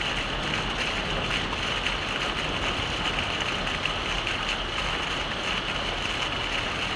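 Heavy rain falling steadily, an even wash of drops with no change.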